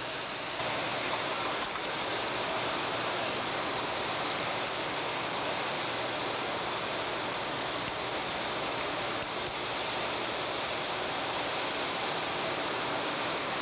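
Steady rushing noise of a large fan used as a wind machine to blow fake snow. It gets louder about half a second in.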